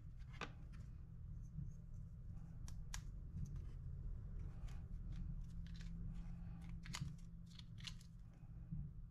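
Faint scattered small clicks and plastic handling sounds: the battery cover of a digital micrometer is taken off, and a coin-cell battery is worked out of its plastic blister pack. A steady low hum runs underneath.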